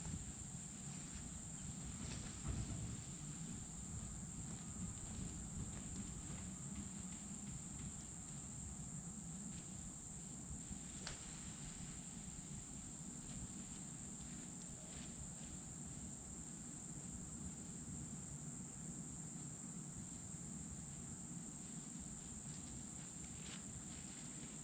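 Steady, high-pitched chorus of insects such as crickets, unbroken throughout, over a low background rumble.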